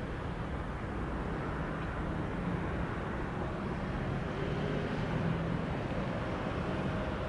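Steady distant engine rumble with a faint wavering hum underneath.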